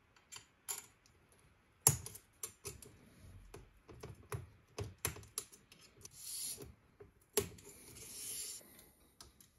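Hands handling small parts on a 3D printer's aluminium extrusion bed frame: a run of light, irregular clicks and taps, the sharpest about two seconds in and again past seven seconds, with two short scraping sounds in the second half.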